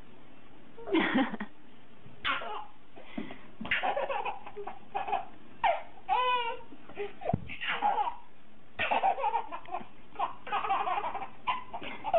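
Baby laughing in a string of short bursts of giggles, one after another.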